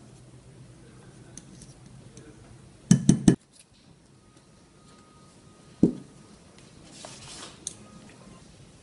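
Small ball-peen hammer tapping a pin into a steel shotgun receiver: four quick sharp metallic taps about three seconds in, then a single knock a few seconds later, among light clinks and scrapes of metal parts being handled.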